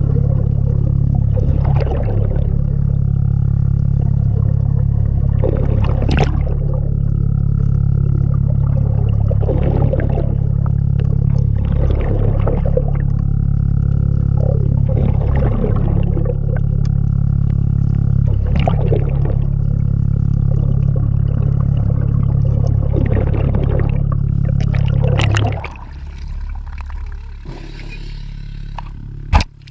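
Underwater sound during in-water propeller work: a steady low machine hum, with a rush of air or bubbles, typical of a diver's regulator breathing, surging every few seconds. The hum drops away about 25 seconds in, and a sharp knock comes near the end.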